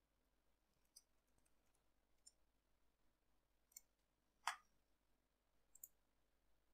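Faint computer keyboard keystrokes: a handful of scattered clicks, the loudest about four and a half seconds in.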